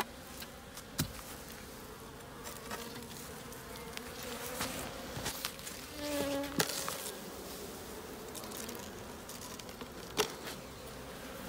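Honeybees buzzing steadily around an opened wooden beehive, with a few sharp wooden knocks as the hive cover is handled and lifted off.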